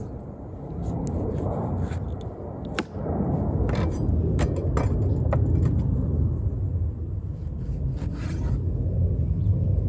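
A knife cutting through raw beef ribs, then a cleaver slicing meat on a wooden cutting board: scraping, with a scatter of sharp clicks and taps. A steady low rumble runs underneath.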